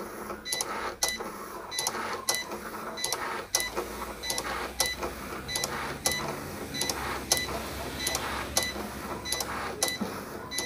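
Cricut Explore Air 2 cutting machine's motors and rollers moving the mat and the blade carriage during a calibration run. They make sharp clicks with a short chirp each, roughly two a second, over a low hum.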